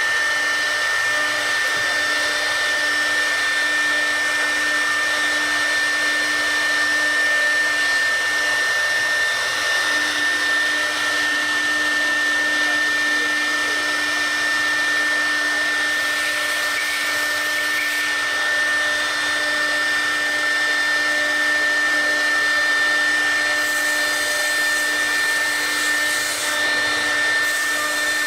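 Wood CNC router's spindle running at a steady speed, a constant high whine over a whirring noise.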